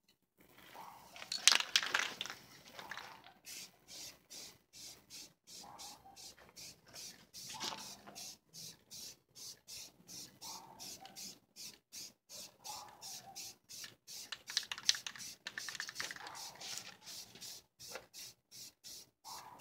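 Aerosol spray-paint can being shaken, its mixing ball rattling in an even rhythm of about two to three strokes a second, with the nozzle hissing out paint about a second in and again about fifteen seconds in.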